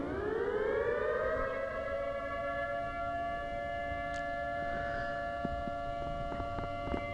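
Civil defense siren winding up, its pitch rising over about the first second, then holding a steady wail.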